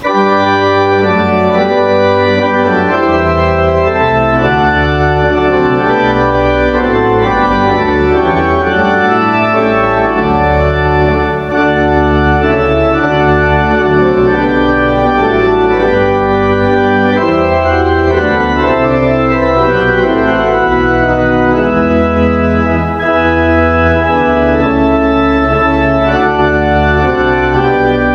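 Organ playing sustained chords with a moving bass line.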